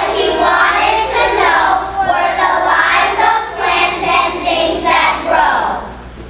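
A chorus of young children's voices, a whole class of second graders in unison, stopping about six seconds in.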